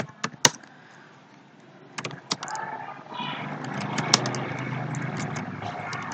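Computer keyboard keys clicking as a terminal command is typed: a few keystrokes near the start, then more from about two seconds in. From about three seconds in, a steady low background noise rises under the clicks and holds.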